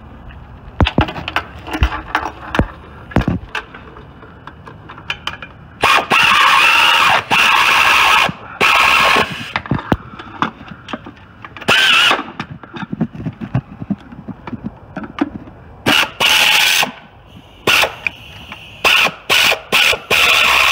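Pneumatic air ratchet run in several short bursts of about a second each, spinning the locking nuts onto the exhaust manifold and exhaust pipe studs. Metal tool clinks and knocks come between the bursts, mostly in the first few seconds.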